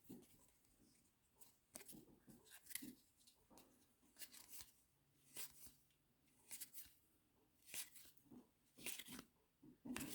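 Near silence with faint, irregular soft clicks and rustles, roughly one a second: trading cards being handled and flipped through by hand.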